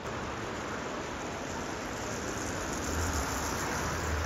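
Steady rush of a fast-flowing river: an even hiss of moving water, with a low rumble that swells about three seconds in.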